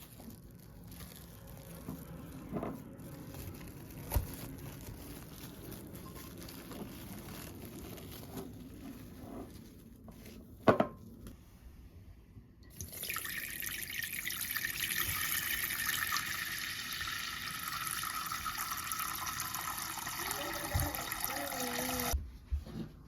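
Kitchen tap turned on about halfway through, water running steadily into the sink for about nine seconds and then shut off abruptly. Before it, quiet handling sounds with a few clicks and knocks.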